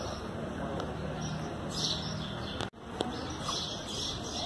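Small birds chirping in short repeated bursts over a steady low background hum; the sound cuts out for an instant a little past the middle.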